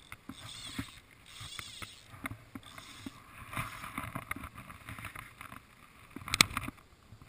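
Water lapping and gurgling against the hull of a small boat, with scattered light knocks and one sharper knock about six and a half seconds in.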